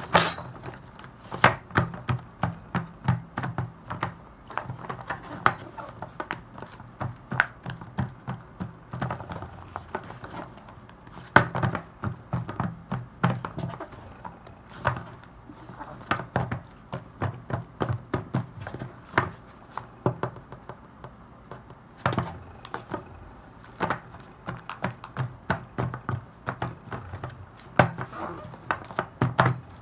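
Silicone pop-it fidget toy bubbles being pressed in, one after another: a continuous run of short, soft pops, several a second, some louder than others.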